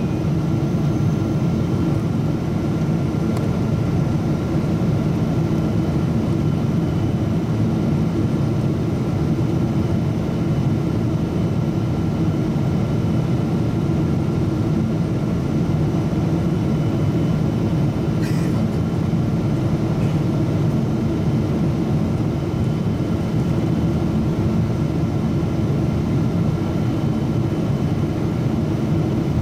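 Steady cabin noise of a Boeing 777-200ER airliner in descent: a low rumble of the jet engines and rushing airflow heard through the fuselage, with a faint steady whine above it.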